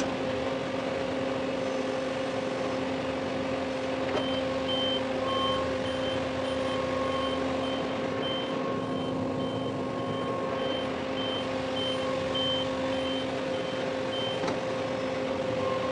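LS tractor's diesel engine running steadily as it backs up. From about four seconds in until near the end, a reverse alarm beeps about twice a second.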